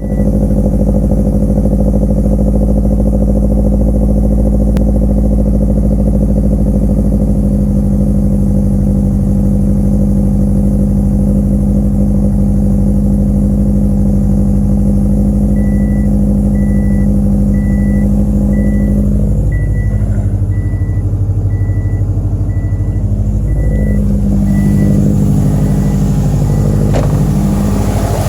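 2007 Subaru Impreza WRX STI's turbocharged flat-four engine idling roughly. Past the middle its speed starts dipping and recovering again and again: a misfire, which the owner puts down to all four cylinders. A faint beeping repeats a little more than once a second through the later part.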